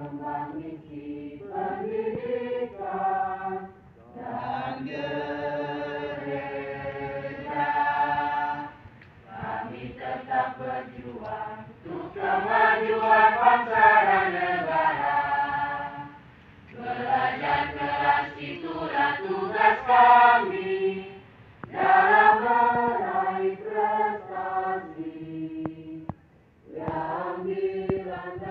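A large group of students and teachers singing a school march together, in phrases of a few seconds with short breaks for breath between them.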